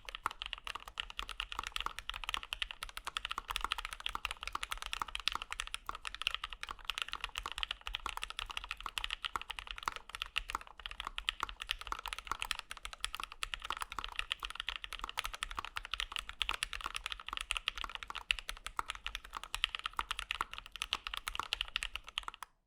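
Fast, continuous typing on a mechanical keyboard with lubed Gateron Black Ink linear switches on an O-ring-mounted aluminium half plate, in an aluminium Kei prototype case with CRP keycaps. The typing stops abruptly near the end.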